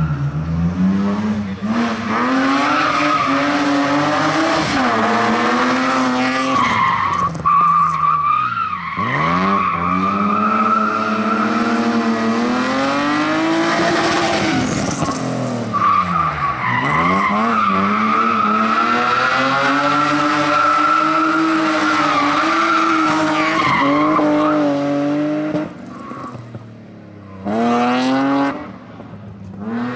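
Rally car engine revving hard, its pitch climbing and falling again and again as it is driven through a slalom course, with long tyre squeals while the car slides. Near the end the engine fades, with one more short rev.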